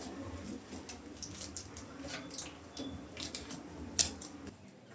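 Handling noises: small clicks, taps and rustles, with one sharp click about four seconds in.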